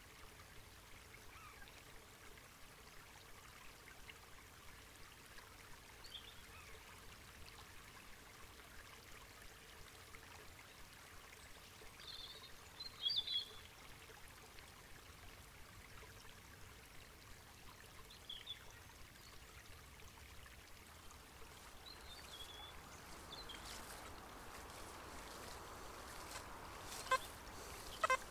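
Quiet outdoor ambience with the faint steady rush of a nearby stream and a few short bird chirps, the clearest about halfway through. Near the end come a couple of short, sharp sounds.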